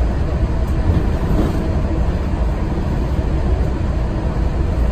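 Mark VI monorail train running at speed, heard from inside the passenger cabin: a steady low running noise with no breaks or changes.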